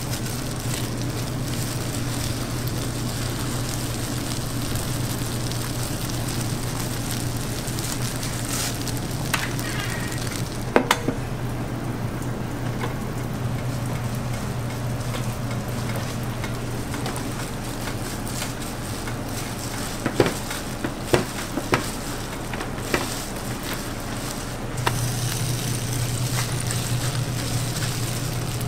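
Bread dough sizzling on a hot electric waffle iron: a steady hiss over a low hum, with a few sharp clicks and knocks from handling about ten seconds in and again around twenty seconds in.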